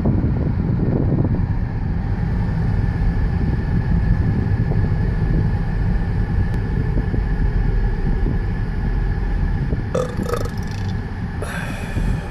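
A long, loud belch near the end, brought on by a fizzy Sprite soda, over a steady low rumble.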